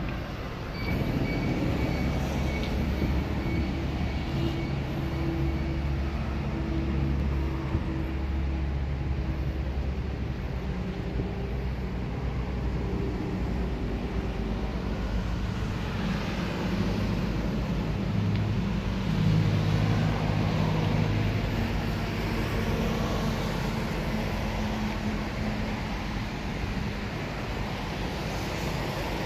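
A vehicle engine running steadily, a low hum with several pitches that shift somewhat about midway.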